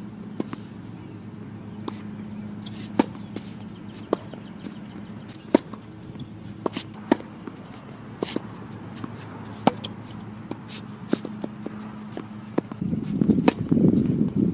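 Tennis rally: sharp pops of racquets striking the ball and of the ball bouncing on the hard court, about one every second or so, over a steady low hum. Near the end a louder low rumbling comes in.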